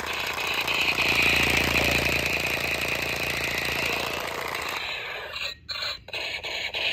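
Battery-powered toy smoke blaster firing with a continuous rapid buzzing rattle, which dies away about five seconds in.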